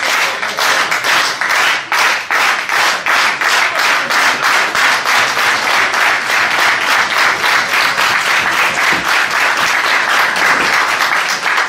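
Crowd of spectators applauding steadily, a dense run of many hand claps.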